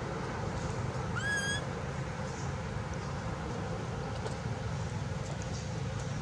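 Baby macaque gives one short, high-pitched call about a second in, rising and then held, over a steady low rumble.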